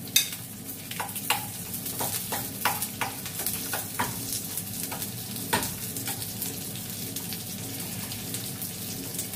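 Chopped onion and garlic sizzling in a frying pan over a gas flame, with a utensil clicking and scraping against the pan at irregular intervals as they are stirred.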